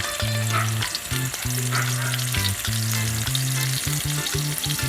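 Sliced onions sizzling in hot cooking oil in a pan and being stirred, a steady crackling sizzle.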